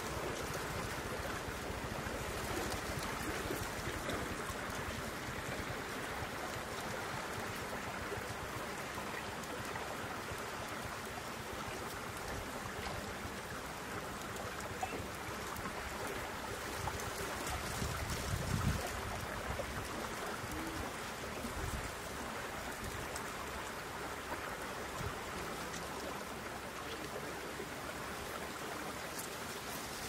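Steady rushing outdoor background noise, with low rumbles of wind on the microphone a little past halfway.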